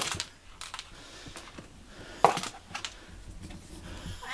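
A few light clicks and knocks, with a sharp one at the start and another about two seconds in, as a cat wearing a hard plastic cone collar moves about and steps toward a litter box.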